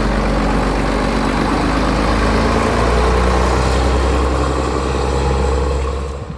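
Scania P93 hooklift truck's diesel engine running close by as the truck pulls away, a steady deep note that shifts a little partway through. The sound drops away sharply near the end.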